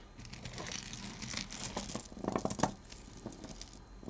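Loose costume jewelry being rummaged through by hand: beads, chains and small metal pieces clicking and rattling against each other, with some rustling, most busily about two and a half seconds in.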